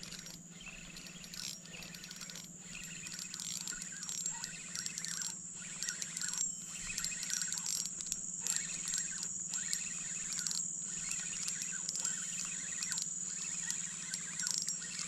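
Steady high-pitched insect drone, with a low even hum beneath and scattered light clicks and ticks.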